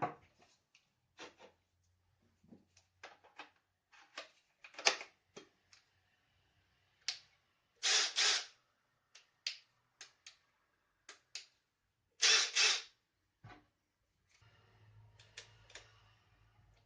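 Handling noise from unboxing: scattered clicks and knocks of the packaging and tool being handled, with two louder rustling or scraping bursts of just under a second each.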